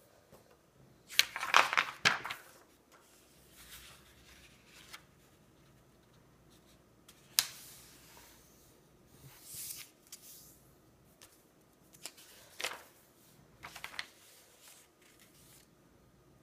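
A sheet of printer paper being handled, folded in half lengthwise and creased: short bursts of rustling and sliding paper, with a few sharp taps as the fold is pressed flat against the tabletop. The loudest stretch of rustling comes about a second in.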